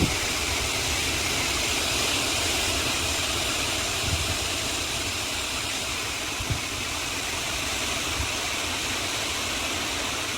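Steady rushing roar of severe storm winds gusting at around 70 to 75 mph, with a low rumble and a few brief low thumps.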